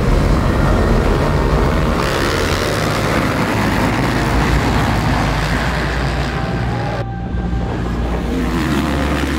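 A pack of motocross bikes revving at the starting gate and then pulling away at full throttle, several engines running at once. The sound changes abruptly twice, about two and seven seconds in.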